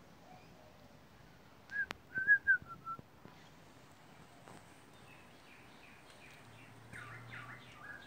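A quick run of about six short, clear whistled notes that fall slightly in pitch, with a sharp click among them, then a fainter, busier cluster of whistled chirps near the end.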